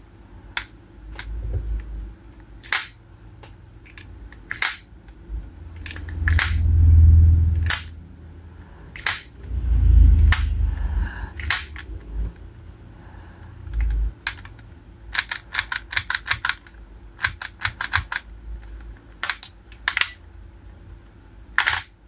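Sharp plastic clicks and taps from a bootleg Doom Geats Raise Buckle toy being handled, with a quick run of clicks about three-quarters of the way through. Two longer dull low rumbles from handling come about a third and halfway in.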